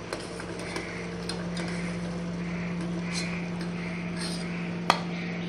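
Sugar syrup simmering with parwal in a steel saucepan: soft, faint bubbling over a steady low hum. One sharp metallic clink near the end, as a steel slotted spoon knocks against the pan.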